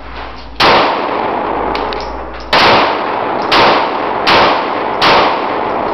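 Glock 26 9mm subcompact pistol fired five times, each shot echoing off the walls of an indoor range. One shot comes about half a second in, then after a pause four more follow, each under a second after the last.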